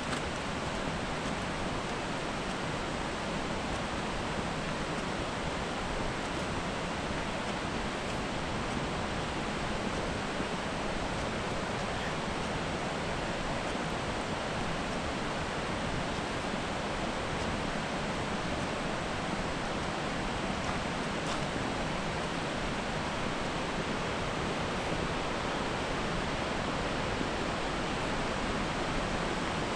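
Steady rush of flowing creek water, an even hiss that does not change.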